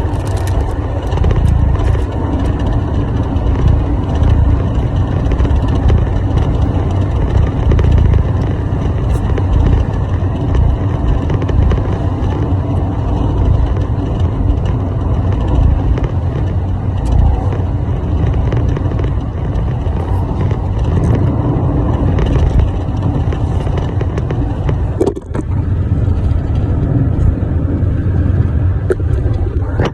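Steady low rumble of a running vehicle, with a brief dip about 25 seconds in.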